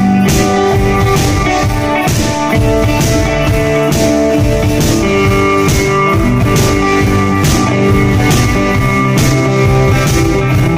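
Live guitar music played through stage amplification: sustained chords and melody notes over a steady beat of about two drum hits a second.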